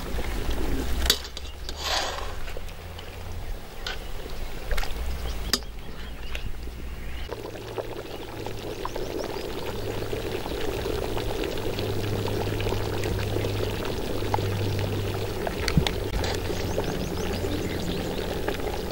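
Fish curry bubbling at a steady boil in a metal pot. A few sharp clinks of a metal ladle against the pot come in the first six seconds.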